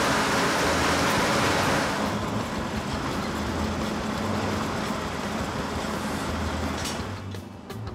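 A large wood-grinding machine running, a steady heavy rush of engine and grinding noise over a low hum. It drops in loudness about two seconds in and again near the end.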